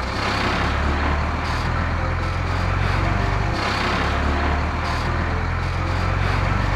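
Heavy truck engines running steadily: a constant low rumble with engine noise above it, swelling slightly now and then.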